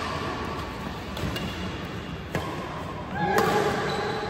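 Badminton rackets striking a shuttlecock in a doubles rally: a few sharp hits, roughly a second apart.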